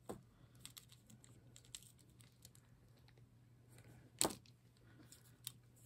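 Faint, scattered light clicks and taps of metal and plastic clip-on earrings being handled and set down, with one sharper click a little after four seconds in.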